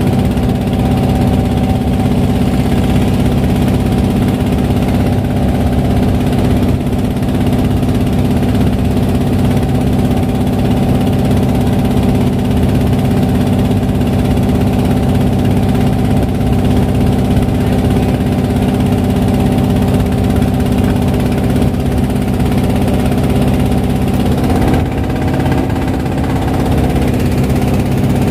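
Wooden boat's engine running steadily while the boat is underway, a constant drone with an even pitch.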